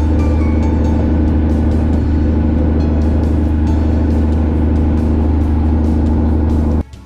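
Fishing boat's engine running steadily at speed, a loud, even low drone; it cuts off suddenly just before the end.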